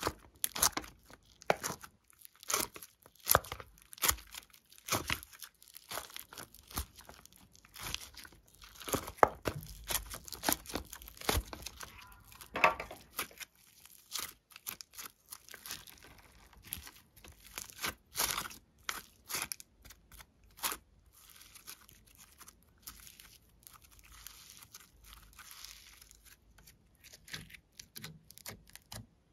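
Glossy and foam-bead slime being pulled, squeezed and folded by hand: irregular sticky clicks, crackles and pops, with foam beads crunching. The crackling grows sparser and softer over the last several seconds.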